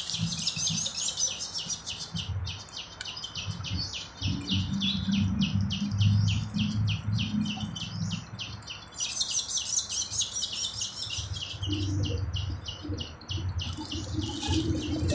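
Rapid, evenly repeated chirping, about four short chirps a second, pausing briefly twice, over a low uneven rumble.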